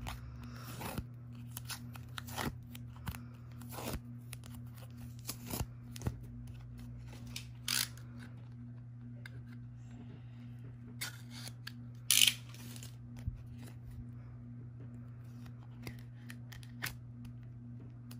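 Scissors snipping and paper rustling as a kraft-paper mailer sealed with washi tape is opened. Short scattered clicks and rustles come throughout, the loudest about 8 and 12 seconds in, over a faint steady low hum.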